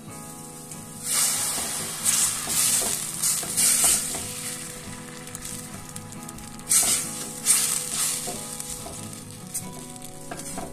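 Crushed fresh tomato sizzling in hot olive oil in a stainless steel pan while a silicone spatula stirs it. The sizzle starts about a second in and swells in loud surges as the pulp is pushed around, strongest early on and again past the middle.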